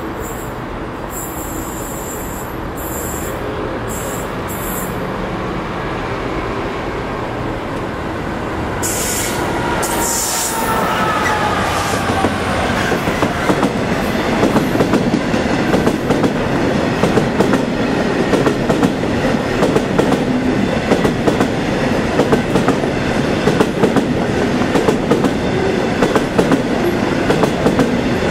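A Class 66 diesel freight locomotive passing with a train of coal hopper wagons: a steady engine hum at first, a few falling whines about ten seconds in, then the wagons' wheels clattering rhythmically over the rail joints, growing louder.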